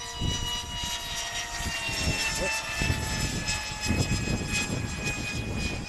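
Small electric radio-controlled helicopter with an electric ducted-fan thruster flying overhead: a steady high-pitched electric whine of several pitches that drifts slowly lower, over a low rumble.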